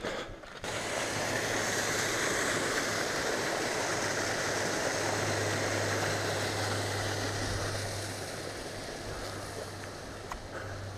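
Rushing water of a small mountain stream cascading down a rocky gully, a steady splashing roar that slowly fades toward the end.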